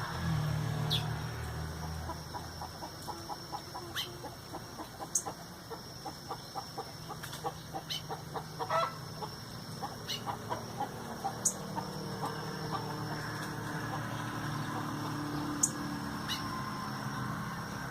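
Birds calling: short, sharp high chirps every second or two, and a quick run of clucking notes from about two to ten seconds in, over a steady high-pitched tone.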